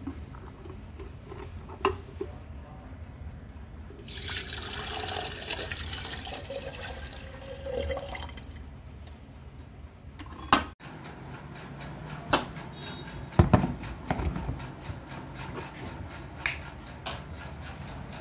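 Water poured into an electric kettle's stainless-steel jug, a rushing splash lasting about four seconds, followed by several sharp plastic clicks and knocks as the kettle is handled, the loudest about two-thirds of the way through.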